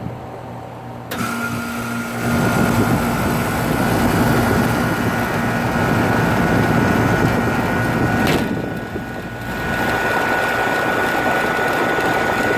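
2004 Rheem Corsaire 3-ton central air conditioner, with its Bristol reciprocating compressor, starting up: a sudden steady hum kicks on about a second in and grows louder over the next second as the unit comes up to speed, then runs steadily. A short knock comes about eight seconds in.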